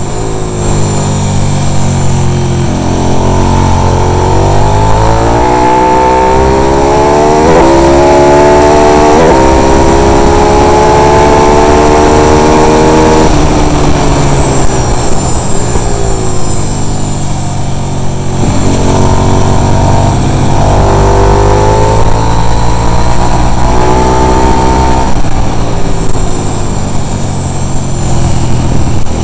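Racing motorcycle engine heard close up from on board at full throttle. Its pitch climbs through the gears, with quick drops at each upshift, then falls as the bike brakes and downshifts for a corner. It climbs again on the exit and drops once more near the end.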